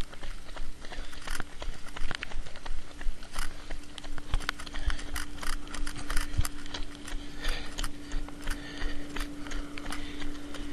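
Running footsteps on wet pavement, an irregular patter of slaps and knocks mixed with rubbing and bumping from a handheld camera jolted by the stride, over a steady hum.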